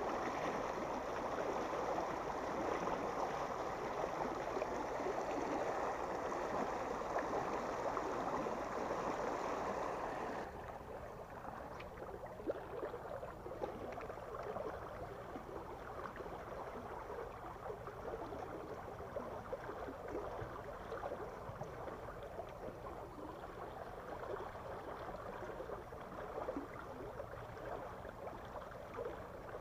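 Water rushing and churning out of a river sluice gate: a steady rush that drops abruptly, about ten seconds in, to a quieter, softer flow.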